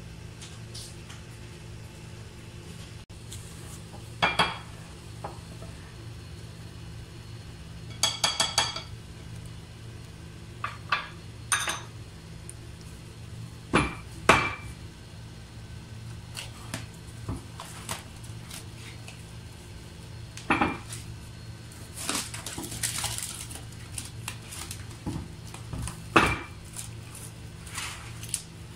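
Scattered clinks and knocks of a utensil against a glass mixing bowl, over a steady low hum. About 8 s in there is a quick run of ringing clinks, and around 22 s a short stretch of scraping.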